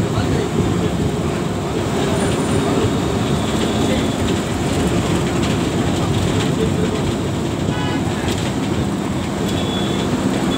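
Steady rumble of engine and road noise heard from inside a moving road vehicle driving through city traffic.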